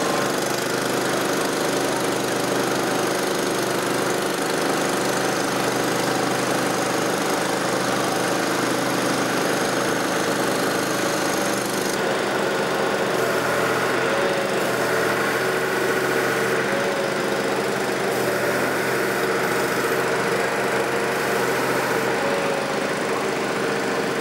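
A boat engine idling with a steady, even drone; its tone shifts slightly about halfway through.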